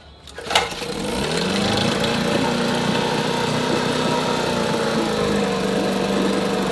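1960 Evinrude 5.5 HP two-cylinder two-stroke outboard catching about half a second in, its pitch rising briefly, then running steadily. The motor has an intermittent spark miss on its top cylinder, which the owner takes to be why it spits, coughs and smokes heavily.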